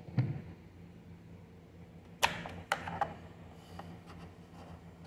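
Sharp clicks and knocks of an XLR microphone cable being handled and plugged into the input jacks of a mixing console, the two loudest a little over two seconds in, over a steady low hum.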